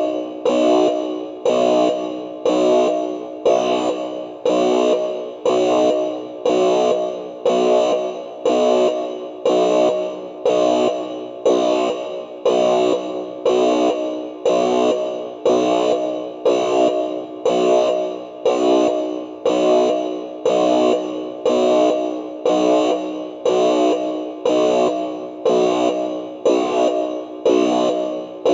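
Synthesized sci-fi spaceship alarm signalling that weapons are activated. A chord-like electronic tone pulses steadily about once a second, each pulse starting sharply and fading.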